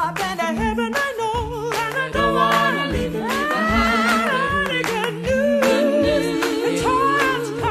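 Gospel singing, largely a cappella: a lead voice with wide vibrato, sliding between notes, over lower held humming voices and a steady beat.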